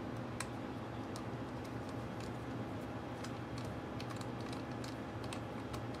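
Small irregular clicks and ticks of a small screwdriver and tiny screws against the metal frame of a 2.5-inch laptop hard drive as the screws are driven back in, over a steady low hum.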